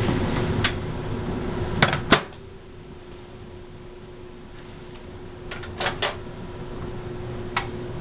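Microwave oven running with a steady hum, cut off by two sharp clicks about two seconds in. It then goes quieter, with a few more clicks around the middle and shortly before the end.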